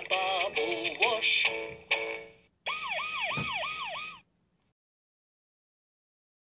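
Leapfrog talking puzzle toy playing its electronic fire-engine jingle through a small speaker, then a siren sound effect: a fast, repeating swooping wail, about three swoops a second, that lasts a second and a half and cuts off suddenly.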